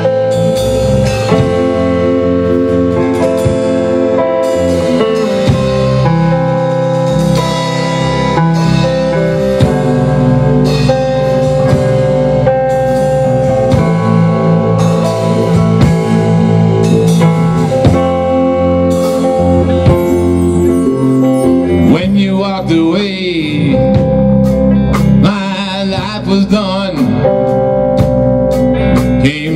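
A live band playing an instrumental passage of a song: electric guitar over a drum kit, with a wavering lead line in the last several seconds.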